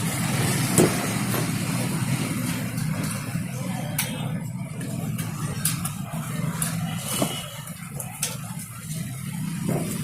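Tools working a jammed screw on a washing machine spin motor's base plate: a handful of sharp metal clicks and taps, spaced a second or more apart, over a steady low background hum.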